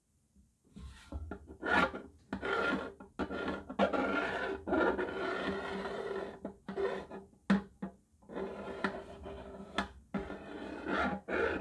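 Metal point of a drafting compass scratching into a fiberglass sheet in repeated scraping strokes, scoring a marking line. It starts about a second in, with one longer unbroken stroke in the middle and a few short pauses.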